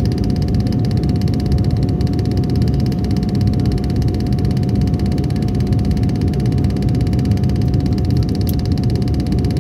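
Passenger aircraft in flight heard from inside the cabin: a loud, steady low rumble with a constant pitched hum over it.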